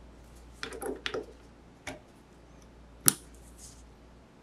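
Small clicks and knocks of handling as an XLR cable is fitted to an Electro-Voice RE20 microphone on its stand: a few light clicks about a second in, another near two seconds, and one sharp, louder click a little after three seconds, over faint hiss.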